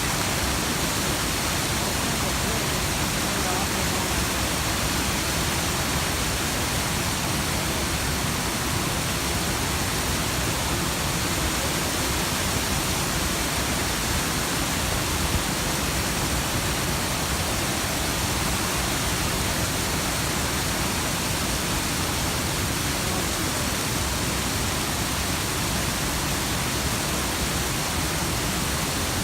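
Steady, even rush of flowing creek water, a dense hiss that holds the same level throughout.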